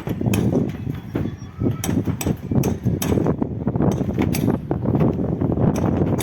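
Concrete mixer running: a steady low rumble with many irregular clanks and knocks as the drum churns.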